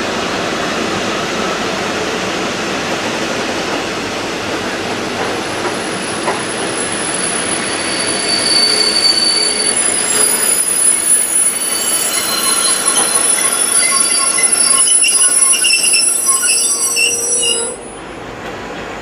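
A V/Line diesel-hauled passenger train's carriages rolling past at close range. From about halfway the carriage wheels squeal in several high, steady pitches over the rumble, and the sound drops away abruptly near the end.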